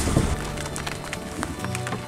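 Background music with sustained low notes and a ticking percussive pattern.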